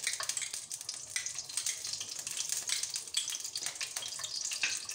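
Ghee sizzling as it melts in a hot frying pan, a steady crackling hiss.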